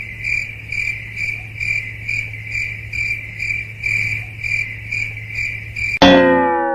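Crickets chirping steadily, pulsing about twice a second, over a low hum, as the comic 'crickets' sound effect for a silence where no answer comes. About six seconds in, a loud sudden sound cuts in, its tones sliding downward.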